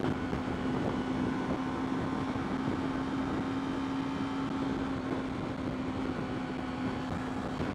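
Yamaha YZF-R3's parallel-twin engine holding a steady high-revving cruise in top gear at highway speed, running without strain, under a rush of wind on the helmet microphone.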